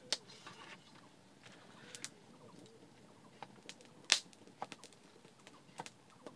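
A wood cooking fire crackles with scattered sharp snaps, and a wooden stirring stick knocks against the metal pot once, loudly, about four seconds in. A faint bird call can be heard near the start.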